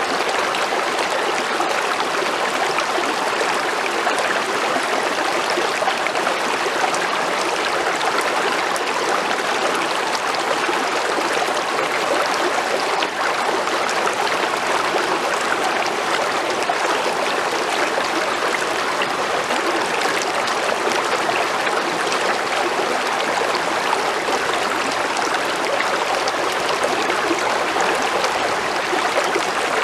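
A creek's water flowing steadily over rocks, a continuous rushing and trickling.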